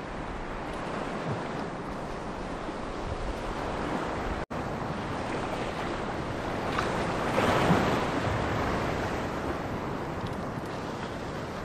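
Sea waves washing over a rocky shoreline, with wind buffeting the microphone. The sound cuts out for an instant about four seconds in, and a louder rush of water comes a little past the middle.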